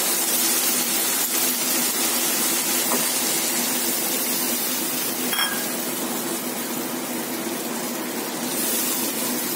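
Water poured into a hot nonstick kadai of masala frying in oil, hissing and sizzling steadily, then stirred with a wooden spatula with a couple of light clicks. The sizzle eases a little about halfway through as the water takes the heat off the pan.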